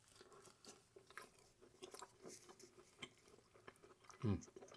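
Faint chewing of a cheese quesadilla: soft, scattered mouth clicks and smacks. A short low hum of the eater's voice comes near the end.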